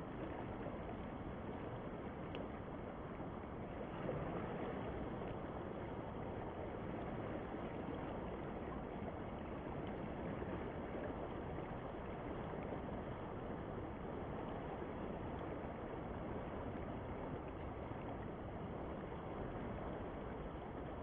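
Fast, swollen river rushing steadily past, a continuous even rush of water.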